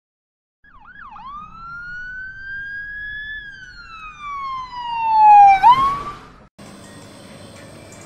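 Emergency siren wailing in one long gliding tone: it dips, climbs slowly, then falls and swoops back up as it peaks in loudness, and cuts off. A faint steady room noise follows.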